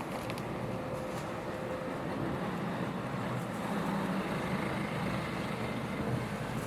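A steady engine rumble.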